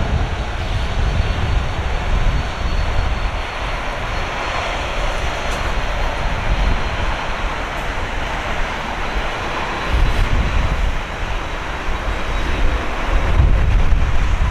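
Airbus A320-232's IAE V2500 turbofan engines running on landing approach, a steady jet drone with a faint high whine, getting louder near the end as the airliner reaches the runway. Wind buffets the microphone with a gusty low rumble.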